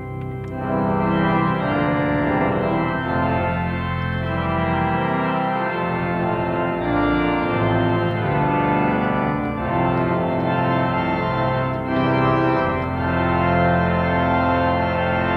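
Large three-manual church pipe organ playing full sustained chords, swelling louder about a second in.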